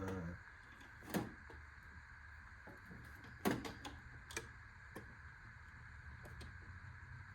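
Screwdriver set's packaging being handled and opened: a few scattered sharp clicks and taps, the loudest about a second in and about three and a half seconds in, over a faint steady hum.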